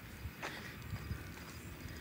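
Faint footsteps on a dirt floor, soft irregular steps with one light click about half a second in.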